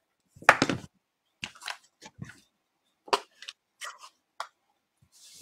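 A run of short clicks, taps and knocks from craft supplies being handled on a cutting mat, including the plastic case of an ink pad being slid and its lid flipped open. The loudest knocks come about half a second in.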